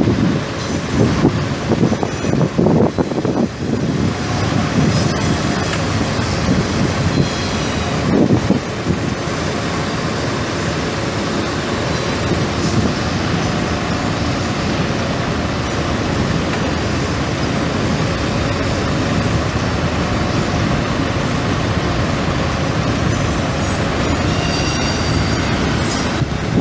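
A Ford 7.3L V8 diesel engine running steadily, with a faint steady whine over the engine noise.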